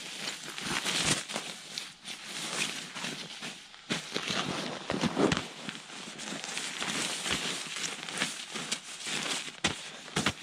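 Fabric of a Jerven bag rustling and crinkling in irregular bursts as it is handled and spread out on snow.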